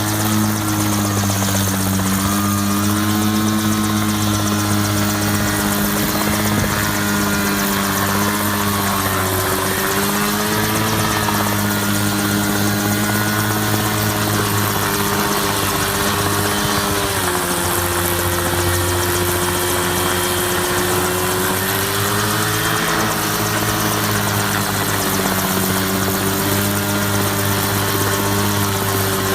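Helicopter running steadily in flight: a constant engine and rotor drone whose pitch drifts slowly up and down.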